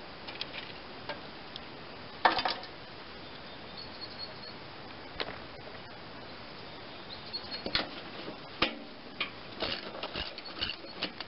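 Handling noise of hands and the handheld camera on the lawn tractor's body panel: scattered light clicks and taps, one louder knock about two seconds in, and a busier run of small clicks over the last few seconds.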